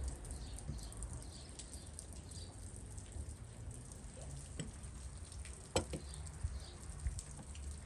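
Quiet food-handling sounds: soft taps and rustles as tomato slices are set on the stuffed zucchini, then a sharp click of a spoon against a bowl a little under six seconds in, over a faint low rumble.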